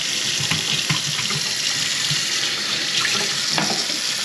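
Kitchen faucet running steadily into the sink, water poured through to test the drain line after a grease clog was cleared.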